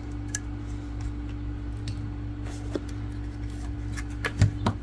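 Light clicks and taps of a circuit board being picked up, turned over and set back down on a paper-towel-covered bench, with one louder knock near the end, over a steady low hum.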